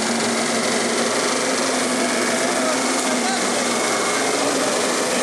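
Jeep Grand Cherokee's engine held at steady high revs as its mud-tyred wheels spin in mud, straining to climb a steep slope. People's voices shout over it.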